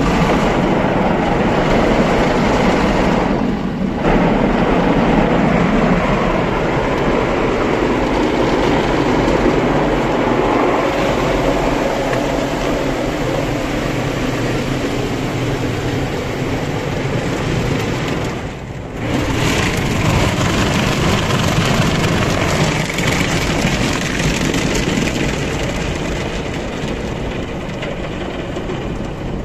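Automatic car wash heard from inside the car: water spray and rotating brushes beating against the windows and body make a loud, steady wash of noise. It eases off briefly twice, a few seconds in and about two-thirds of the way through.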